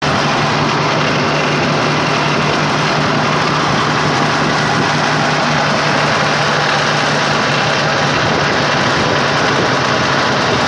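John Deere 730's two-cylinder gasoline engine running steadily as the tractor drives along.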